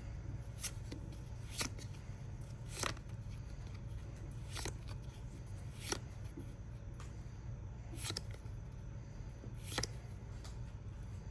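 Pokémon trading cards being flicked through one at a time from a freshly opened booster pack: about seven short card snaps, irregularly spaced one to two seconds apart, over a steady low hum.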